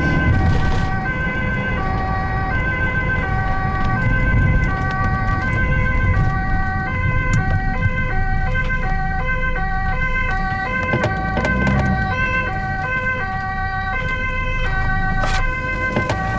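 Ambulance two-tone siren, switching back and forth between steady pitches, over the vehicle's road and engine rumble.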